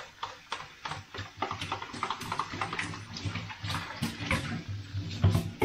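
Kitchen tap running into a stainless-steel sink while a small pot is scrubbed under it, with frequent irregular light clinks and knocks of the pot against the sink; the loudest knock comes near the end.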